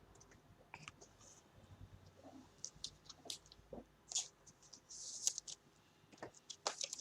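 Trading cards and their packaging being handled: faint, scattered light clicks and scratchy rustles, with a short swish about five seconds in.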